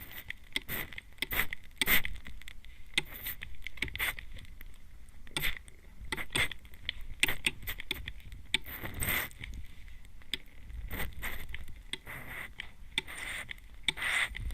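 Hand-pumped mist spray bottle sprayed close to the microphone's ear: a run of short hissing spritzes, a few each second and unevenly spaced, with a couple of longer sprays near the middle and near the end.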